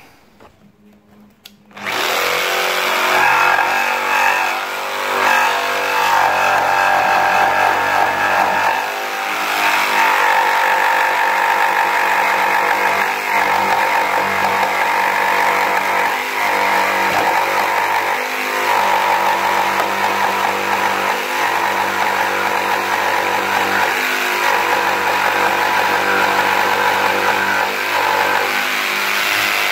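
Mafell P1cc corded jigsaw starting about two seconds in and cutting through pine timber, running steadily with a few brief dips.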